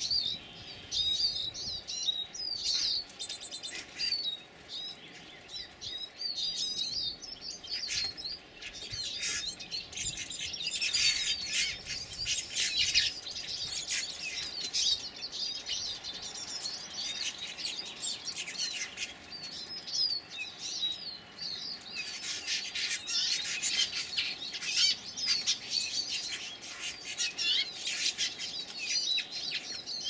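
A flock of bramblings calling at a seed feeding table: many short, high chirps and chatter overlapping, busiest around the middle and again near the end, with wing flaps as birds land and take off.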